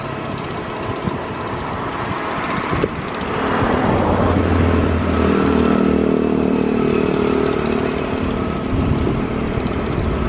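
An engine running steadily with a low hum, growing louder about three and a half seconds in.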